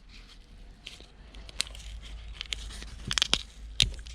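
Scattered light clicks and taps of a dismantled speaker's parts being handled, with a quick cluster of clicks about three seconds in, over a low steady rumble.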